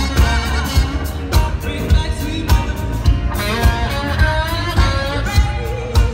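Live band music heard from the audience: a woman singing over drums keeping a steady beat, with keyboards and guitars.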